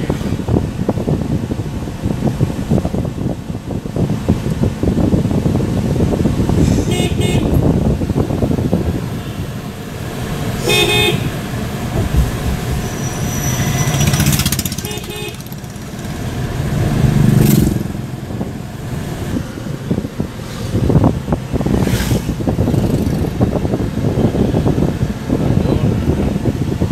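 Steady road and engine noise of a moving car in traffic. Vehicle horns toot three times in the first half.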